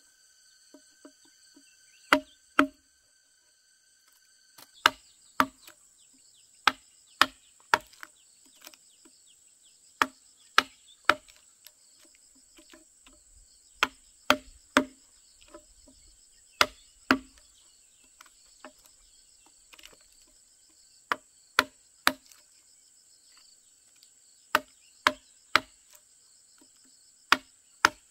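Wooden mallet striking a chisel to chop a recess into a hewn log: sharp wooden knocks, irregular and often in quick pairs or threes about half a second apart.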